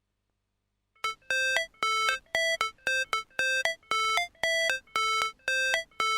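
Silence for about a second, then a song's intro begins: a keyboard riff of short, separate repeated notes, about three a second.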